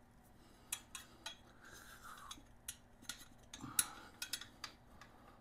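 Faint, irregular metallic clicks and clinks of a steel exhaust spring and spring puller being worked onto the exhaust pipe joint, with short scrapes of metal between them and the sharpest clink about four seconds in.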